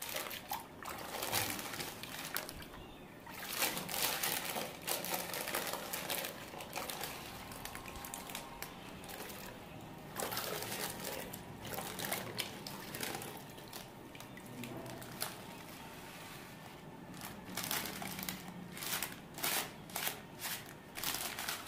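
Hands rubbing and sloshing a plastic-wrapped packet in a plastic bucket of soapy water, with splashing and the plastic wrapping crinkling. Near the end the packet is lifted out, with a run of short splashes and drips.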